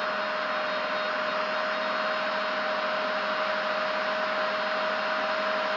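Steady whirring hiss with a constant mid-pitched hum tone from a small cooling fan running without change.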